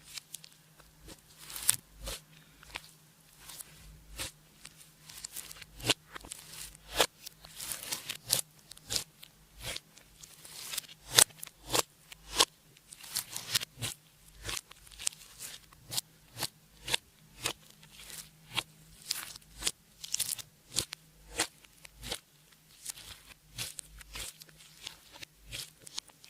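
Clear slime being squeezed and kneaded by hand, giving irregular sticky pops and clicks, several a second.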